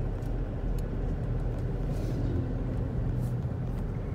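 A car driving along a road, heard from inside the cabin: a steady low rumble of engine and road noise.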